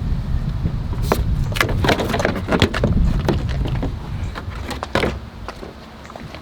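Plastic trunk trim and the trunk light's wiring being handled: a quick string of clicks and knocks over a low rumble, busiest in the first half, with one more knock about five seconds in.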